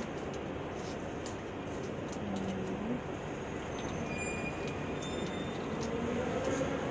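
Steady rushing background noise with a few faint short tones over it.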